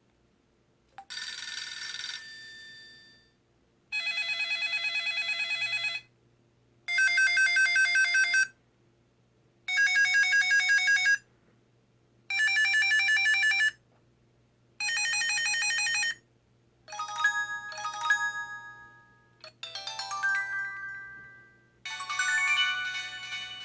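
2007 Samsung Anycall UFO phone (SPH-W3000) playing its built-in alert tones one after another: a string of short electronic ringing tones, each about one to two seconds long with short gaps between, then short melodic jingles near the end.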